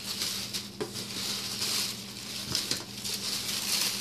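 Tissue paper rustling and crinkling as a hand folds it back inside a cardboard box, with a few small handling clicks.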